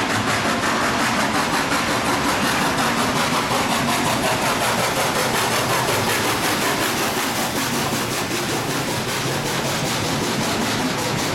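NSW C36-class steam locomotive 3642 passing at low speed, steam hissing from its open cylinder drain cocks. Near the end, the water tank wagon behind the tender and the passenger carriages rolling past on the rails.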